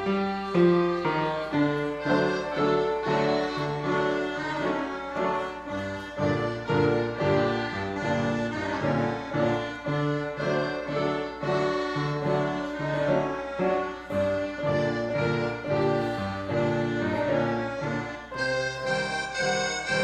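Instrumental music: chords over a bass line that pulses about twice a second. About 18 seconds in, the sound turns brighter.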